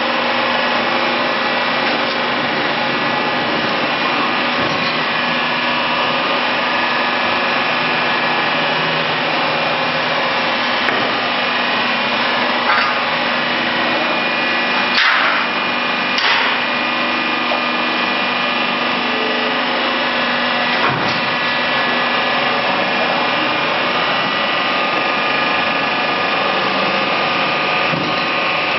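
Knife grinding machine for veneer rotary-lathe knives running and grinding: a steady machine hum with several constant tones over a dense grinding hiss. A few brief louder swells come around the middle.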